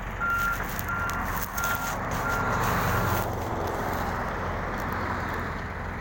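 An electronic beeper sounds five short, even beeps of one pitch, about one and a half a second, then stops a little over three seconds in. A steady low rumble runs under it.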